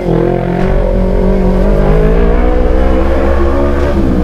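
Kawasaki Ninja 250 Fi parallel-twin engine running under way at low speed, its pitch rising a little in the first second, then holding steady, and dropping near the end.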